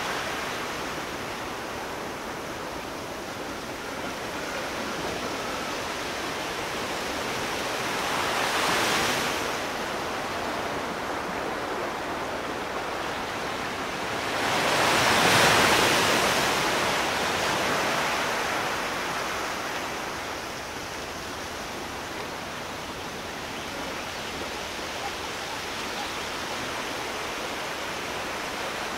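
Sea surf: a continuous wash of waves, with two breakers swelling louder and fading, one about nine seconds in and a bigger one around fifteen seconds in.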